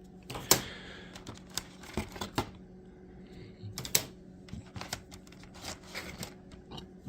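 Irregular clicks and clacks of thin plywood kit boards being handled and set down on a table, over a faint steady hum.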